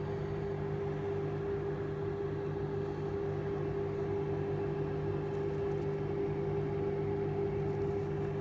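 Small electric fans of a PC-case grow box running: a steady whirring hum with one constant tone.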